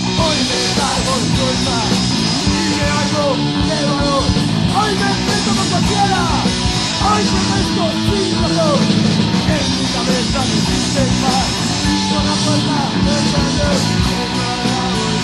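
Punk rock song playing, the band going at a steady, loud pace.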